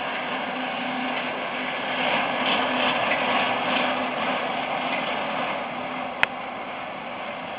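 Horse-drawn sickle-bar mower clattering steadily as the team pulls it through the hay, its gearing and cutter bar running. A single sharp click sounds about six seconds in.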